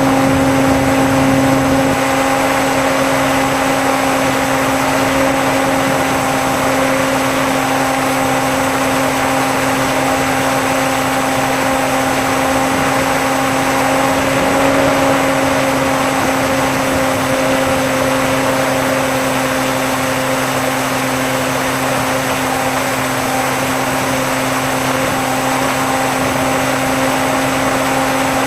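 Electric motor and propeller of a Bixler RC plane running steadily in flight, heard through the onboard camera: a continuous hum over a rush of wind, its pitch shifting a little now and then.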